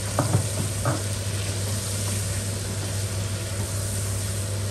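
Boneless chicken pieces sizzling in hot oil in a pot while a silicone spatula stirs them, with a few scrapes and taps of the spatula in the first second. A steady low hum runs underneath.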